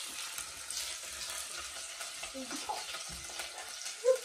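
Sliced onions sizzling gently in oil in a pot, stirred with a silicone spatula at first; the onions are early in frying, not yet cooked through. A brief louder sound near the end.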